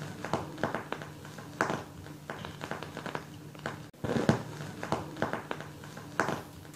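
Scattered light clicks and taps over a low steady hum, with a brief drop-out about four seconds in.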